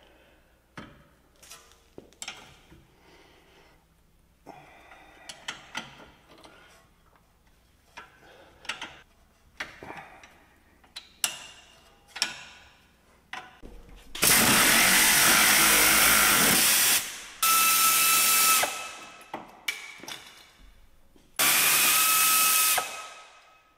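Scattered clicks and knocks of tools and metal parts on a brake caliper, then a pneumatic air ratchet running in three steady bursts, the first about three seconds long, the last two shorter, turning the rear caliper bolts.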